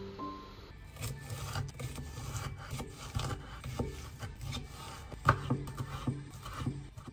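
Kitchen knife chopping a Japanese long onion (negi) on a wooden cutting board: quick, irregular taps of the blade through the onion onto the wood, starting about a second in, with one louder strike about five seconds in.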